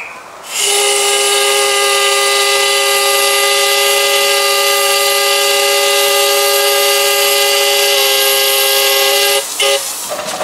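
Steam whistle of a 7¼-inch gauge miniature steam locomotive: one long, loud, steady blast of about nine seconds sounding several notes together, cut off sharply and followed by a short toot near the end.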